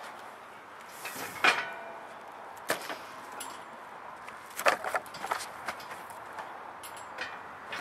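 Steel back rack frame clanking against the pickup bed as it is lifted and set in place: several sharp metal knocks, some with a brief ring. The loudest come about one and a half seconds in and again a little past the middle.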